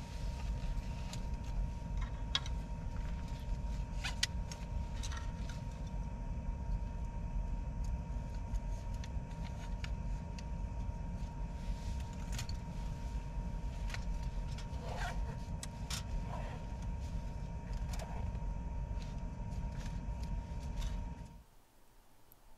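A steady low rumble with a faint steady whine, under scattered small clicks and clinks of things being handled; it all drops away abruptly near the end.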